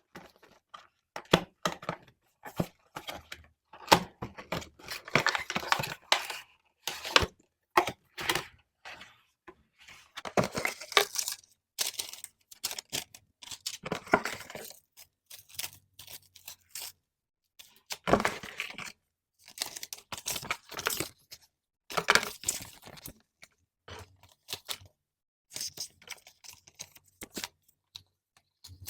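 Headphone packaging being opened by hand: tearing and rustling in irregular bursts, with sharp clicks and taps.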